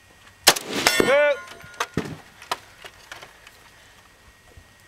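A single shot from an AK-pattern rifle about half a second in, followed a moment later by the ringing of a steel target hit downrange, the delay being the time the sound takes to travel back from the plate. A few light knocks follow.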